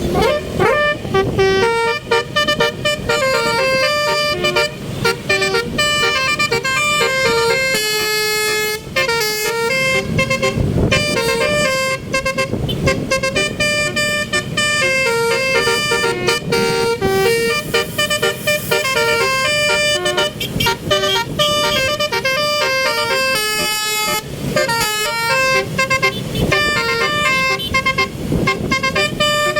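Bus telolet 'basuri' multi-tone horn playing its stepping melody over and over, with road and engine noise underneath.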